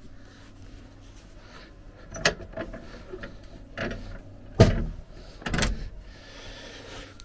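A few separate clunks and knocks of objects being handled, the loudest about four and a half seconds in, over a faint steady low hum.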